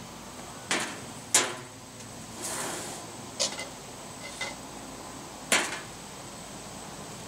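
About five sharp clacks and knocks of a metal grilling utensil against a gas grill's grate and a plate while grilled dove breasts are lifted and plated, the loudest about a second and a half in and near the end, with a short hiss about two and a half seconds in.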